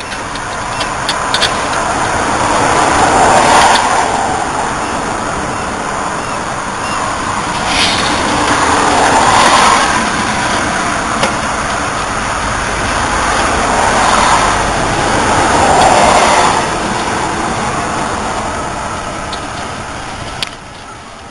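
Road traffic going past: three vehicles in turn swell up and fade away over a few seconds each, with a few light clicks as a brake line fitting is worked by hand.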